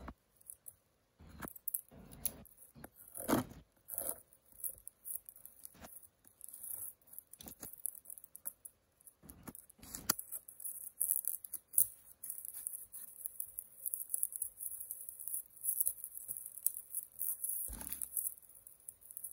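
Scissors snipping through a taped black plastic mailer bag, with the plastic crinkling and tearing as it is pulled open. Irregular crackles and snips come and go throughout.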